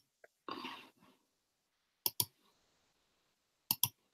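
Clicks at a computer while logging in to a web page: two quick pairs of sharp clicks about a second and a half apart, with a short soft rustle near the start.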